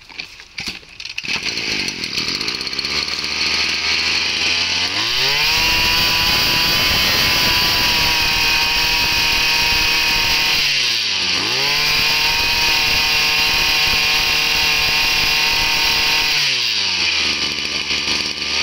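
Small Koshin 22cc two-stroke engine on an engine-powered backpack sprayer, pull-started and catching about a second in, then idling. It revs up high about five seconds in, drops back for a moment, revs up again, and settles back to idle near the end.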